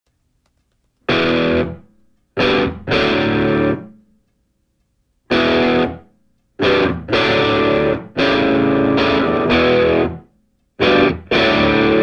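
Distorted electric guitar music: about ten chords, each struck sharply and left to ring out, with dead-silent gaps between them.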